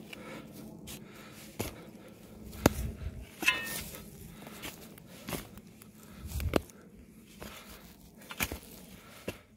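Footsteps on dry grass and loose soil, with irregular rustles and sharp knocks, and a brief high chirp about three and a half seconds in.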